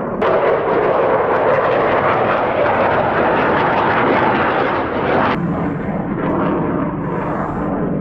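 Military jet flying over, a loud, dense jet-engine noise. About five seconds in the higher part of the noise cuts off abruptly, leaving a lower rumble.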